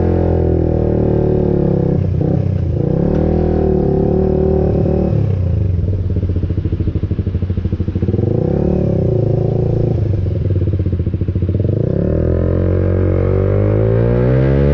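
Suzuki motorcycle engine running through an aftermarket exhaust, revved several times in short swells, with a longer climb in revs near the end.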